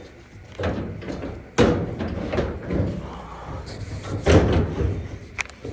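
Several knocks and clunks of a dryer part being handled and fitted back into the machine, with two sharp knocks standing out, about one and a half seconds and four seconds in.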